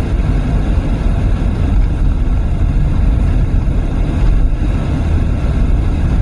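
Car driving, heard from inside the cabin: a steady low rumble of road, tyre and engine noise.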